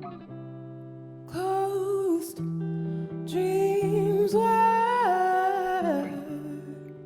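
Woman singing a slow, soulful melody over plucked guitar: a short sung phrase about a second in, then a longer one that steps down in pitch and fades near the end, with the guitar notes ringing on underneath.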